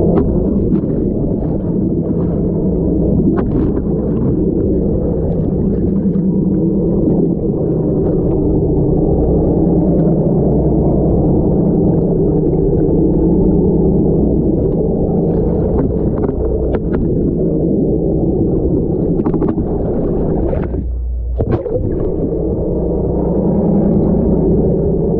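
Muffled underwater sound picked up through a waterproof camera housing: a steady low drone, like a boat's engine heard through the water, with scattered light clicks and fizzes of bubbles. The drone drops away for a moment a few seconds before the end.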